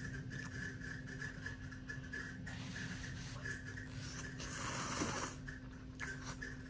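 A person slurping instant ramen noodles into the mouth, with one long slurp about four seconds in. A faint steady hum sits underneath.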